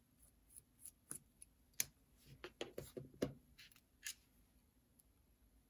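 Faint, scattered clicks and light knocks of a small screwdriver and small metal parts as the trucks are unscrewed from an HO-scale model locomotive chassis, with a quick run of knocks about two and a half to three and a half seconds in.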